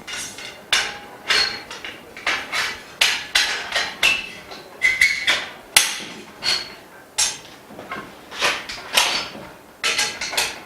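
Frame bars of a dust-free room being knocked into place during assembly: a fast, irregular run of sharp taps and knocks, about two a second, some with a short ringing tone.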